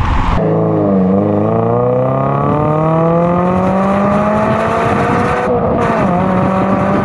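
2022 Toyota GR86's 2.4-litre flat-four through a Corsa Sport cat-back exhaust, heard at the tailpipe while driving. The exhaust note climbs steadily in pitch as the car accelerates, breaks off briefly about five and a half seconds in, then settles to a steady note. It opens with a split second of road and wind noise from the stock exhaust.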